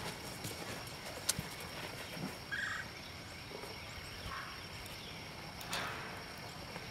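Faint outdoor background with a single sharp click about a second in and a few brief, faint calls, a short high one about two and a half seconds in and a lower one about four seconds in.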